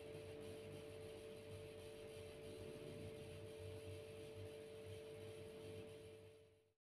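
Near silence: faint room tone with a steady faint hum. It cuts to complete silence just before the end.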